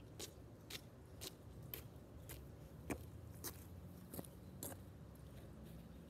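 Faint sharp clicks or taps, about two a second, over a low steady hum.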